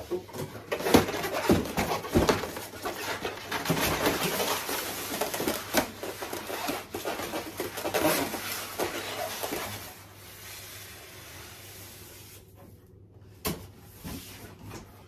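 Large cardboard box being slid up and off polystyrene packing blocks: cardboard scraping and rubbing on polystyrene, with repeated knocks and rustles. It dies down about two-thirds of the way through, with one short knock near the end.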